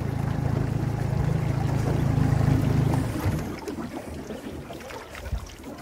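Outboard motor of an aluminium jon boat running slowly with a steady low hum that drops away about three seconds in, over wind and water against the hull.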